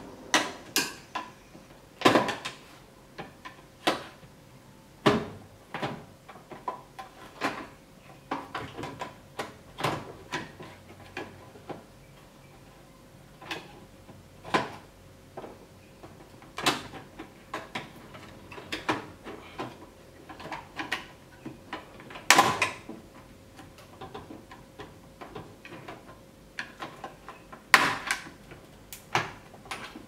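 Irregular clicks and knocks, with a few louder ones, as the control module of a Sharp front-loading washing machine is worked free of its fasteners one by one.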